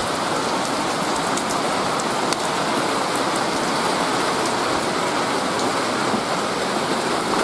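Steady rain shower falling, an even hiss with scattered ticks of individual drops.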